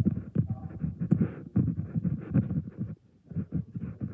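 Strike-off plate scraping across fresh concrete in a test container, in quick irregular strokes.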